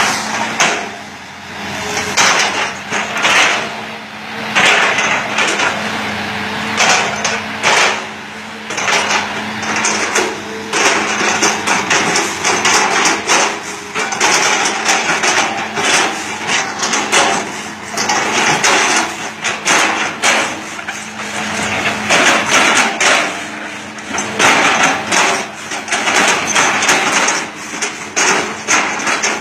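Hitachi Zaxis 200-5G excavator's diesel engine running at high revs while its bucket strikes and chops an oil palm trunk, with repeated irregular cracking and knocking impacts over the steady engine tone.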